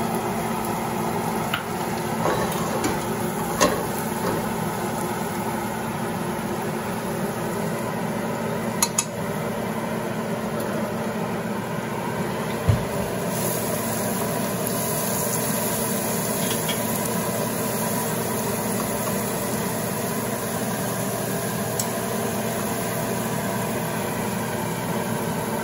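Ginger, garlic and green chili paste sizzling in hot oil with mustard seeds in a nonstick pot, stirred now and then, over a steady mechanical hum. A few sharp clicks stand out, one a couple of seconds in, and more around 4, 9 and 12.5 seconds in.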